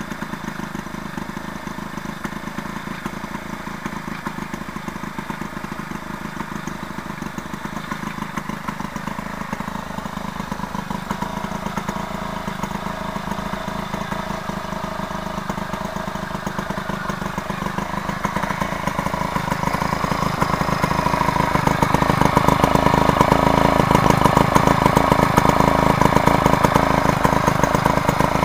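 Two-stroke motorized-bicycle kit engine, fitted with a boost bottle, running steadily on the stand; it grows louder over the last ten seconds.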